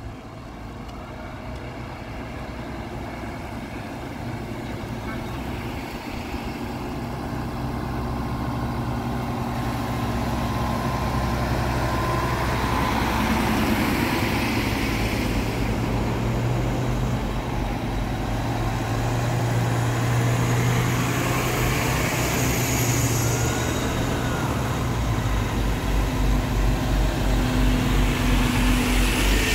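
Diesel fire engines and a ladder truck driving slowly past in procession, engines running and growing louder as they come close. Near the end a low, regular throbbing from the nearest truck's engine.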